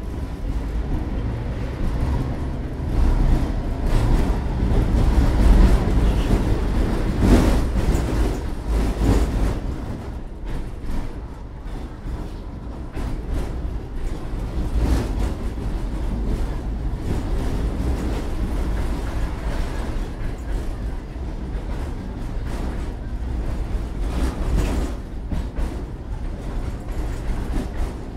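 Tatra T3 tram running, heard from inside the passenger cabin: a steady rumble of wheels on rails and traction drive, with scattered knocks and rattles. It is loudest a few seconds in.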